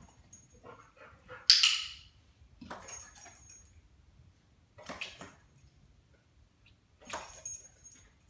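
A yellow Labrador retriever's short vocal sounds: a sharp, loud one about a second and a half in, then three softer, breathy ones about two seconds apart.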